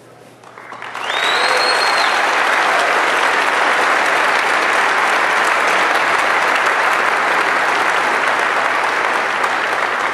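Large crowd applauding, swelling about a second in and holding steady, with a short whistle near the start.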